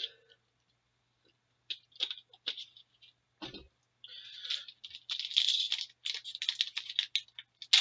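Plastic-foil hockey card pack wrapper being handled and torn open: scattered clicks and rustles, then about halfway in a busy, crackly crinkling.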